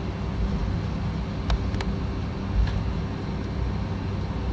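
Airbus A320 cabin noise while taxiing: a steady low rumble of the engines with a constant hum, and a few light clicks about a second and a half and two and a half seconds in.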